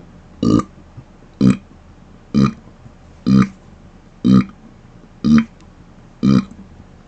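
A man's closed-mouth burps: seven short, evenly spaced burps, about one a second, each of similar loudness and pitch.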